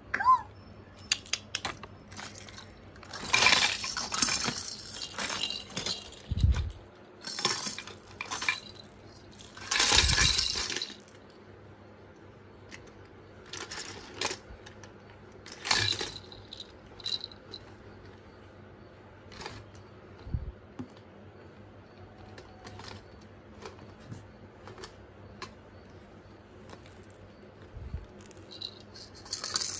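Baby handling a white plastic basket and plastic toys: several bursts of plastic clattering and rattling, with scattered clicks and knocks between them.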